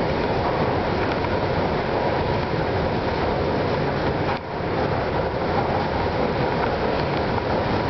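Moving walkway (the Movator) running: a steady mechanical running noise from its belt and drive, briefly dropping in level about halfway through.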